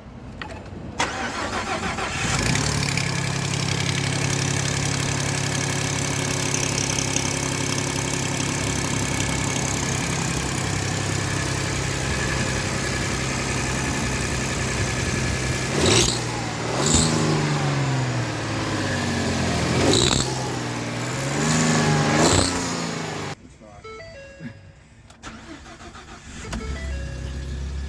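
Ford F-150 engine with an exhaust leak being started, idling steadily, then revved several times in short blips before being shut off; a little before the end it is started again.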